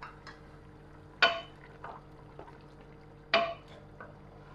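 Wooden spoon stirring a mutton stew in an aluminium pressure-cooker pot, knocking sharply against the metal twice, about a second in and again about three seconds in. A steady low hum runs underneath.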